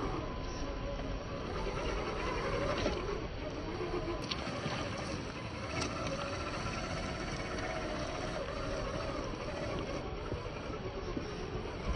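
Electric motor and gear whine of a 1/10-scale RC Jeep Rubicon crawler (YK4102 Pro) driving off-road, the pitch rising and falling with the throttle, over a steady hiss.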